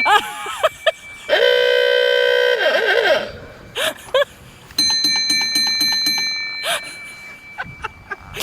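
Loud add-on siren on an old rally car sounding a string of different signals: falling wails, a held horn-like tone about a second in, and bell-like ringing tones.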